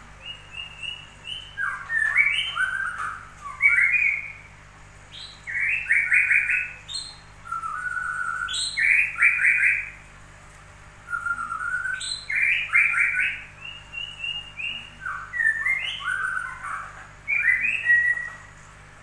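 A songbird singing in phrases of quick trilled and whistled notes, each phrase a few seconds long, with short pauses between them.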